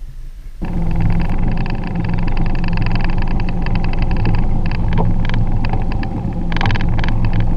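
A small boat's motor running with a steady low hum and a flickering hiss above it, starting suddenly about half a second in.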